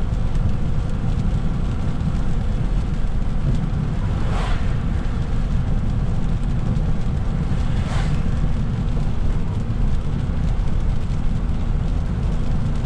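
Car interior road noise at highway speed on a wet road: a steady low rumble of engine and tyres with a hiss from the wet pavement. Two brief swishes come about four and eight seconds in.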